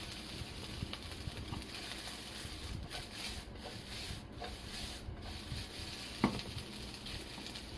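Fried rice being stirred and scraped with a wooden spatula in a nonstick frying pan, then tossed in the pan, giving a steady rustling scrape. A single sharp knock comes about six seconds in as the pan goes back down on the cooktop.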